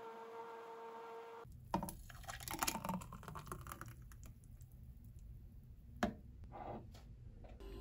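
A steady hum with a faint tone cuts off abruptly about a second and a half in. It is followed by irregular computer-keyboard typing: clusters of key clicks and taps, busiest for a second or so, then sparser, with one sharp click near the end.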